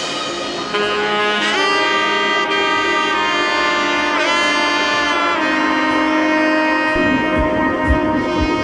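Background music: a sustained melody of long held notes with a couple of pitch bends, over a held lower chord; a steady low beat comes in about seven seconds in.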